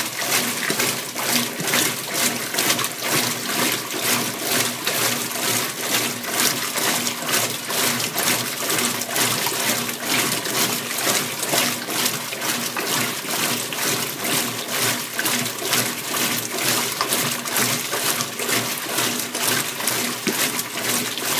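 Kenmore KLA7924FQ0 top-load washer with a belt-drive transmission, agitating water in an empty tub during a rinse cycle. It makes a rhythmic swishing of water over a steady hum.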